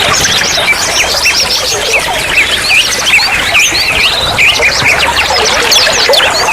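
Babbling, trickling water in a natural stream: a dense, steady stream of short bubbling chirps over a continuous hiss.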